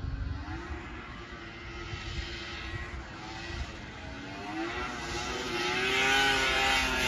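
1996 Polaris XCR 600 SP snowmobile's two-stroke triple engine revving up and down as the sled rides, growing steadily louder as it comes closer.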